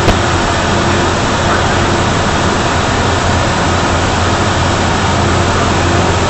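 Steady in-flight noise inside an airliner at cruise altitude: an even, unbroken rush of airflow and jet engines with a constant low hum underneath.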